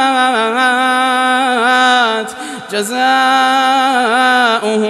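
A man reciting the Quran in a chanted, melodic style, holding long drawn-out notes with ornamental turns of pitch. The voice breaks off briefly about two and a half seconds in, then the chant goes on.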